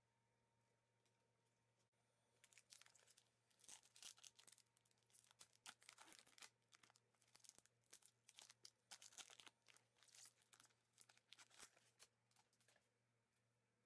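Trading-card pack's foil wrapper crinkling and tearing open in gloved hands, a dense run of sharp crackles starting about two seconds in and stopping shortly before the end.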